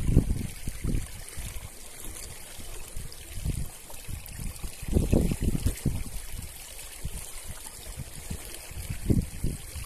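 Water lapping against a boat's hull, with irregular low gusts of wind buffeting the microphone, the strongest about five and about nine seconds in.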